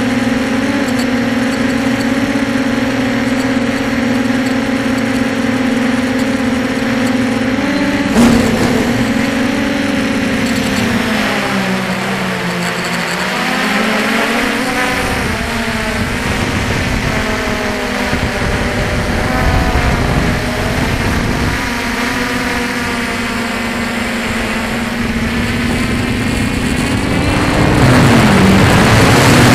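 Electric motors and propellers of an FPV drone humming steadily, heard through the onboard camera. The pitch sags and climbs back twice as the motors slow and speed up again, and near the end it grows louder with more rushing air.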